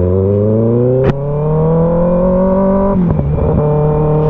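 Kawasaki ZX-6R's inline-four engine pulling under acceleration, its pitch climbing steadily, with a sharp click about a second in. Near three seconds in the engine speed drops and then holds steady.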